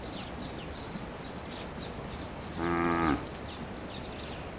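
A cow moos once, a short call of about half a second, a little past halfway through.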